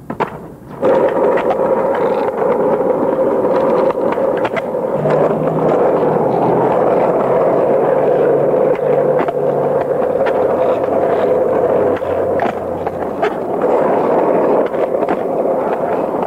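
Skateboard wheels rolling steadily on asphalt, with sharp clacks of the board scattered through it as freestyle tricks are done. The rolling starts suddenly about a second in, as the board comes down from a jump.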